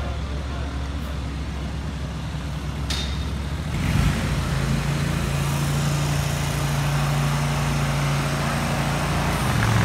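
Steady motor-vehicle engine hum with street traffic noise. It grows louder and fuller about four seconds in and then holds steady.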